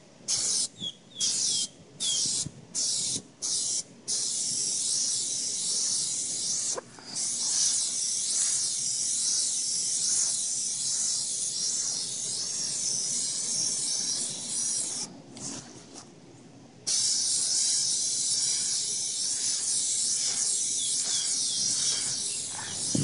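Aerosol can of Plasti Dip spraying with a steady hiss as a light first coat goes on: several short bursts at first, then long continuous passes broken by a pause of a couple of seconds past the middle.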